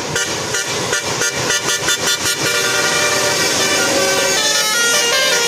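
Tour bus's Basuri telolet horn, a multi-tone musical air horn, playing a tune: a quick run of short choppy notes over the first couple of seconds, then longer held notes.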